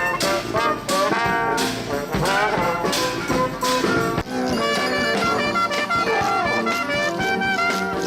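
Brass band playing, with trumpets and trombones over drum hits. The horns slide up and down at first, then settle into held notes.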